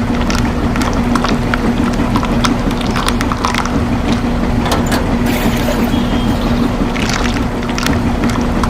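A small motor running steadily with a constant hum and a rough, crackling noise over it.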